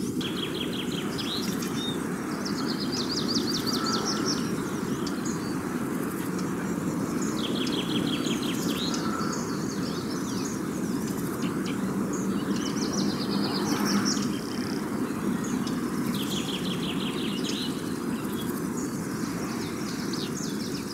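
Songbirds singing: short, high trilled phrases of rapidly repeated notes, coming every couple of seconds, over a steady low background rumble.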